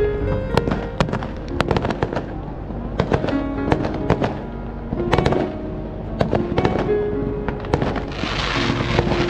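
Fireworks display: firework shells bursting in frequent sharp bangs and crackles, over music with a melody. A dense crackling hiss swells up near the end.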